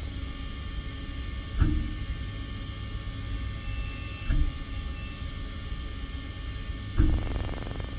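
CNC machining centre with a tilting rotary table working on a small engine block: a steady mechanical hum with a thin high whine, broken by three short low thumps about two and a half seconds apart.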